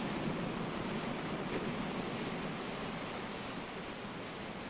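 Steady rushing noise of sea surf, a little louder in the first couple of seconds and easing off after.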